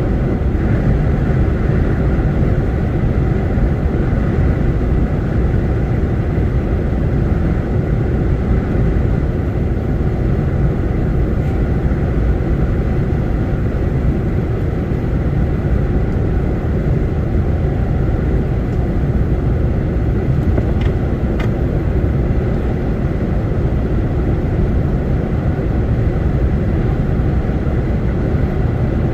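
Steady engine and road noise of a DAF lorry cruising along, heard from inside the cab.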